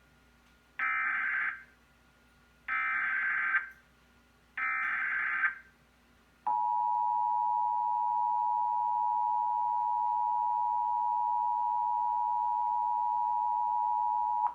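Emergency Alert System header: three short bursts of warbling digital data tones (the SAME header coding the alert, here a flash flood warning), each just under a second long, then the steady two-tone EAS attention signal (853 and 960 Hz together) held for about eight seconds.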